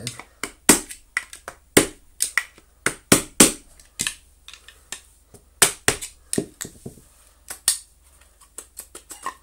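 A claw hammer knocking on a screwdriver used as a punch, about twenty sharp strikes at an uneven pace with a brief pause midway, to drive the field coil out of a vacuum cleaner motor's plastic housing. Near the end the strikes give way to lighter clicks as the housing is handled.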